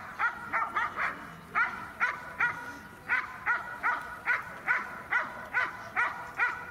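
Dog barking in a rapid, steady run of short, sharp barks, about three a second.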